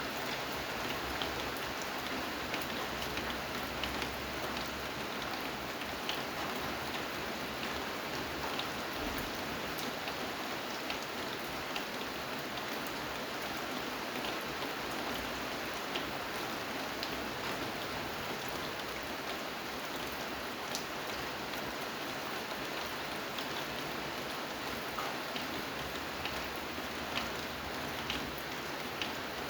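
Steady rain falling, an even hiss with many small scattered drop ticks on a surface.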